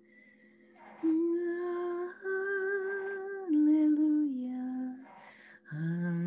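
A woman's voice singing wordless held tones. The notes step down in pitch, each held about a second, and after a brief pause a lower note begins near the end.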